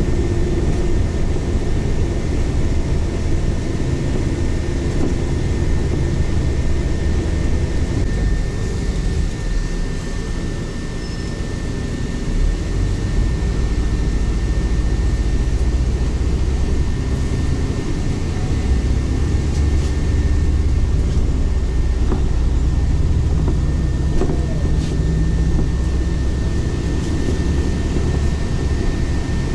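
Interior of a moving city bus: steady engine and road rumble as it drives through traffic, with a faint steady high whine.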